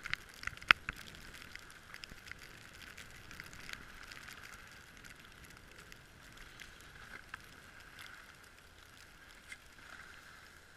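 Skis sliding and scraping over packed snow: a steady hiss with scattered sharp clicks, the loudest in the first second.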